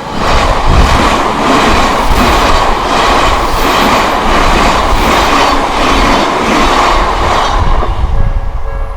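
An Odakyu electric train passing close over a level crossing. Its wheels clack over the rail joints in a steady rhythm of about two a second, and the sound dies away near the end, leaving the crossing's warning bell ringing.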